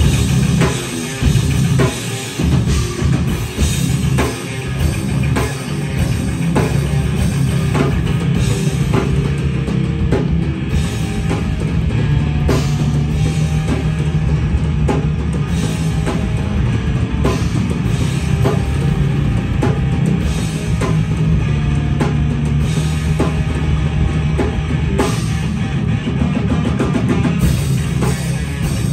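A heavy metal band playing live and loud: distorted electric guitar, bass guitar and drum kit. Stop-start hits over the first few seconds, then steady, dense playing.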